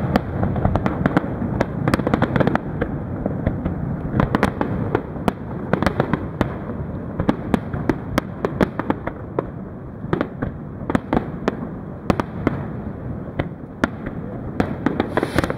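Fireworks display: aerial shells bursting in quick, irregular succession, sharp bangs several a second over a continuous low rumble of further explosions.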